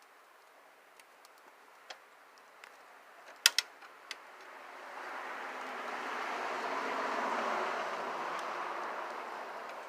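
A couple of sharp clicks about three and a half seconds in, then a vehicle passing by: a smooth rush that swells over about three seconds and fades away again near the end.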